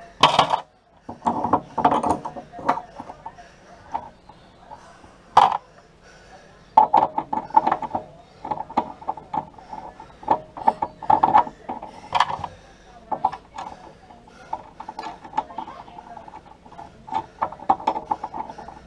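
Chrome cover of a kitchen wall tap being screwed back on by hand: a run of small metallic clicks and scrapes from the threads, with a few louder knocks.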